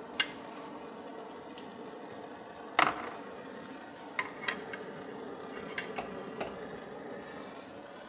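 Sharp metallic clinks and knocks of a steel tube and tools being handled and set in a steel bench vise, about seven in all, the loudest a little under three seconds in. A steady background hiss runs underneath.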